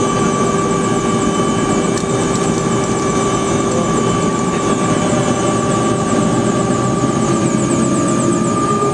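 Bell 206 JetRanger helicopter running on the ground, heard from inside the cabin. The Allison 250 turboshaft engine gives a steady high whine over a loud, constant rush, and the whine edges slightly higher near the end.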